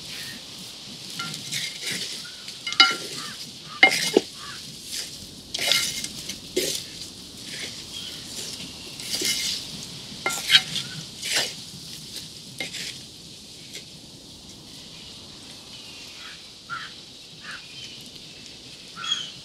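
Chicken pieces frying in masala in a wide metal pan over a wood fire, sizzling steadily, while a wooden spatula stirs and scrapes the pan. It knocks sharply against the metal several times, loudest about three and four seconds in and again around ten to eleven seconds, and the stirring thins out in the last few seconds.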